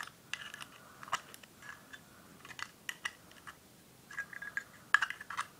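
Irregular small metallic clicks and scrapes as the flint screw at the bottom of a Zippo lighter insert is turned out, with a quick cluster of clicks near the end.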